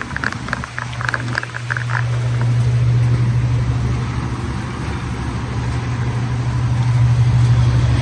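Outdoor air-conditioner condenser running with a steady low hum, with rain falling on and around the units.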